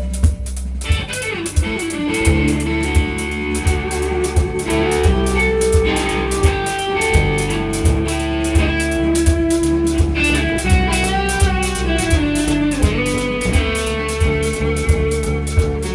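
Band jamming: electric guitar playing over bass guitar and a drum kit keeping a steady beat.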